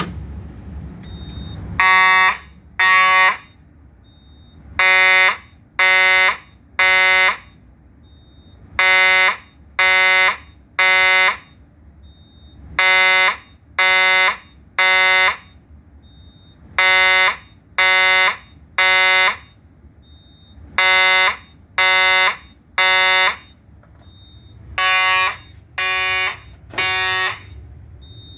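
Simplex 4903-9219 two-wire horn strobe sounding in code 3 (temporal-three) from the fire alarm panel. It gives loud half-second horn blasts about a second apart, three to a group, with each group repeating after a pause. The horn starts about two seconds in, and the first group has only two blasts.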